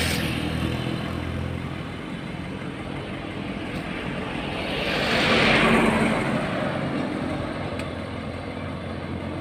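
Road traffic passing close by: a vehicle's tyre and engine noise fades away at the start, and another swells up and passes about five to six seconds in, over a steady low engine drone.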